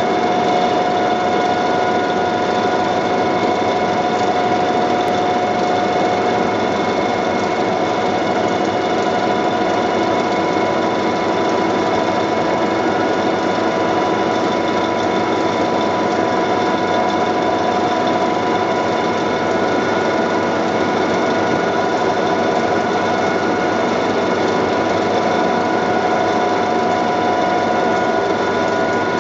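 Churchill TWB roll grinder running steadily: a constant machine hum carrying several steady whining tones, with no change in speed or level.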